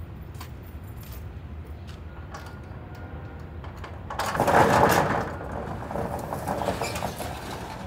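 Corrugated steel roll-up door of a self-storage unit being lifted open. There is a loud rattling clatter about four seconds in as it is shoved upward, then a lighter rolling rattle for a few seconds as it coils up.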